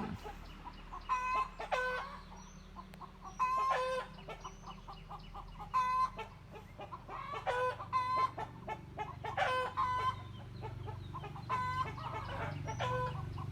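Chickens clucking: short calls repeated every second or two. A low hum runs underneath and grows stronger in the second half.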